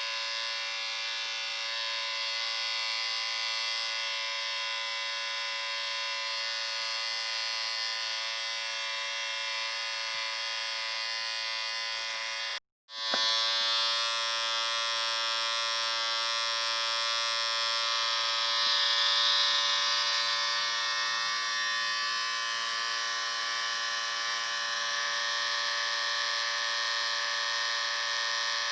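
Electric shaver running with a steady buzz. It cuts out for a fraction of a second about 13 seconds in, then starts again and runs on.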